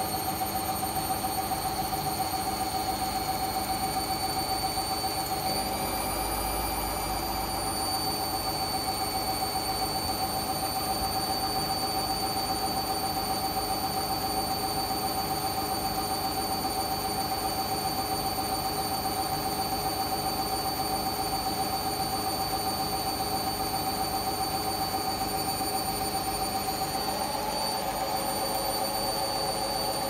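Hoover washing machine in its final spin with an unbalanced load: a steady motor whine with several high tones, stepping up slightly in pitch about five seconds in.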